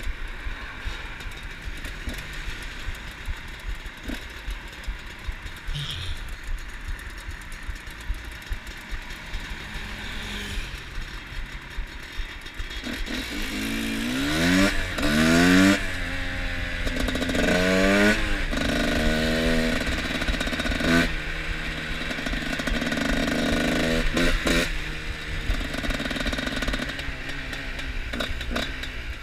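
Two-stroke trail motorcycle engine running at low revs, then about halfway through revving up in several quick rising sweeps as it accelerates through the gears, running at a higher steady pitch and easing off near the end.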